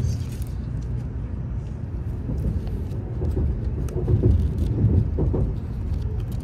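Steady low rumble of a Shinkansen bullet train running, heard from inside the passenger cabin. Over it come irregular crinkles of bamboo-leaf wrapping being unfolded by hand, mostly in the second half.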